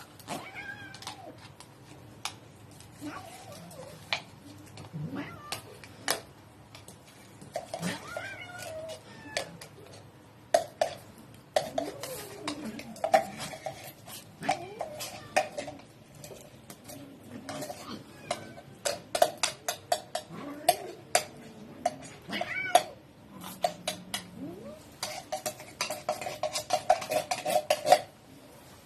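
Many cats meowing and yowling at feeding time, with clinking and scraping of dishes and cutlery as food is served. The clinking grows dense and rapid in the second half and stops suddenly near the end.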